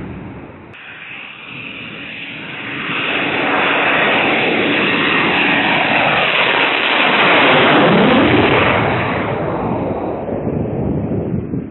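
Fighter jet passing low overhead: jet engine noise swells from a few seconds in, is loudest around the middle, then fades away, with a sweeping pitch as it goes by.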